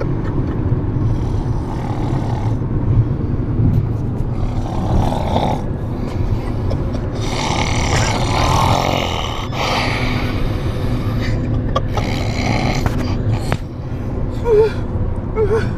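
A sleeping person snoring loudly, snore after snore, over a steady low rumble.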